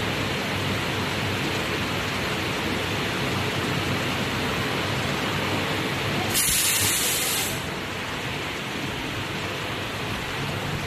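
High-frequency PVC welding and embossing press running with a steady rushing hiss. About six seconds in, a loud, sharp hiss of air lasts just over a second, typical of the press's pneumatic cylinders venting as the press releases. After it the steady noise is slightly lower.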